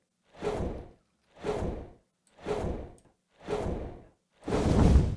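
Designed dragon-wing sound effect on playback: large wing flaps, one whooshing flap about every second with silence between. The last flap is louder and heavier in the low end.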